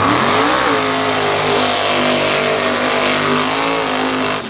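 Mud bog truck's engine revving hard as it launches through the dirt, its pitch rising about half a second in, then held at high revs with a steady note.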